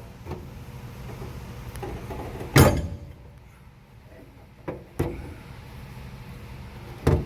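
Sharp knocks and clanks of hand tools at work on the aircraft's landing-gear bungee assembly: four separate strikes, the loudest about two and a half seconds in and the others close to the end. A low steady hum runs under the first few seconds and then fades.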